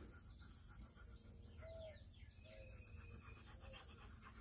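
Faint outdoor ambience: insects trilling steadily, with a few soft short chirps.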